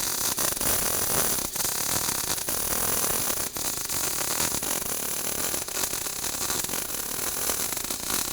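MIG welding arc on hard (solid) wire, a steady crackle with frequent sharp pops as the weld is run up a vertical joint.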